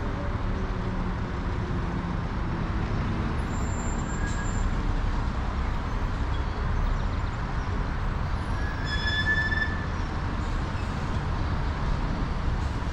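Steady rumble of vehicle noise. About nine seconds in, a brief high metallic squeal rises above it.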